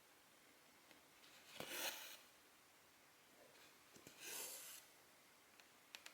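Cotton embroidery thread being drawn through cross-stitch fabric: two soft rasping swishes, each about half a second long, a couple of seconds apart, with a few faint ticks near the end.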